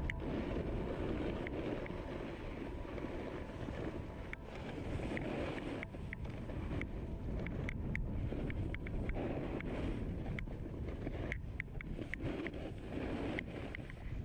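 Snowboard sliding and carving over packed snow, a steady scraping rush, mixed with wind buffeting the microphone and scattered short ticks.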